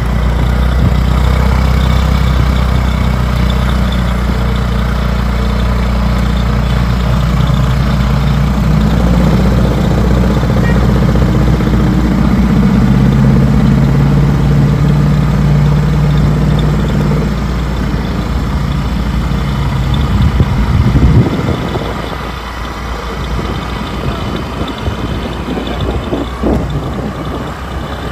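Car engine and road noise, a loud steady low rumble while driving; about three quarters of the way through the rumble drops away, leaving quieter running noise with a few short knocks.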